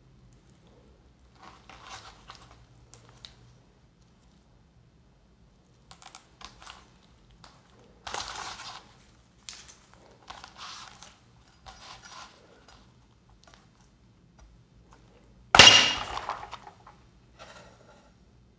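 Whole red dragon fruit handled with gloved hands on an ice-cream-roll cold plate, giving soft rustles and taps, then near the end a chef's knife chops through the fruit and hits the steel plate with one loud, sharp chop that fades over about a second. A low steady hum runs underneath.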